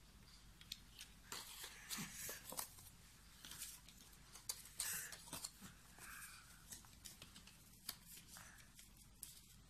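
Faint handling sounds: a paper sheet rustling as it is folded and pushed into a small plastic case, with scattered light clicks and taps of the plastic case being handled and shut.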